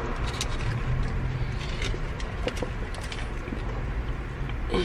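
Steady low rumble inside a car cabin, with scattered small clicks and smacks of people chewing food.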